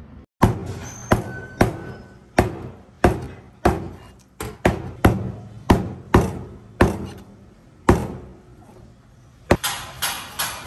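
Cleaver chopping porcupine pufferfish on a thick plastic cutting board: sharp single chops a little more than once a second, a short pause, then quicker chopping, about three a second, near the end.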